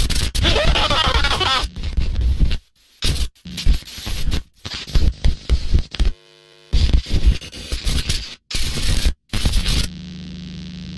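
Harsh, distorted noise and static that cuts in and out abruptly many times, as of an emergency broadcast breaking up at the moment of the attack. Near the end it settles into a steady low hum.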